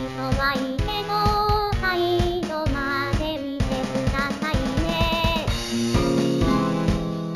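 Upbeat theme song: a sung vocal melody over a steady drum beat. The singing drops out near the end, leaving the backing music.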